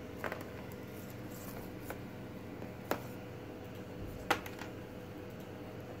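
Cat 6 network cable being handled and worked by hand: four or five sharp clicks, the loudest about four seconds in, over a steady hiss and faint hum.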